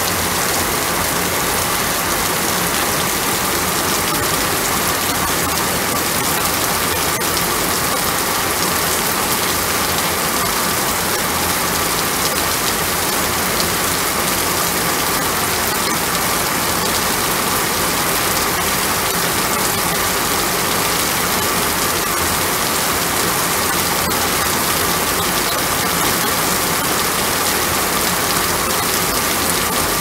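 Heavy rain falling, a steady, unchanging downpour.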